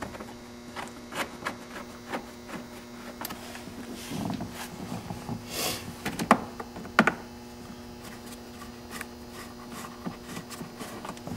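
Scattered small clicks and taps of a golf cart's plastic dash panel and its screws being handled and fitted back in place, with two sharper clicks about six and seven seconds in and a brief hiss just before them. A steady hum runs underneath.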